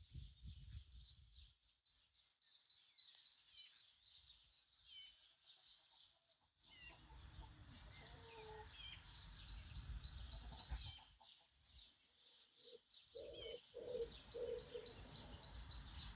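Small birds chirping faintly, with quick runs of repeated high notes and short falling calls. A few low clucks come near the end, like a hen's.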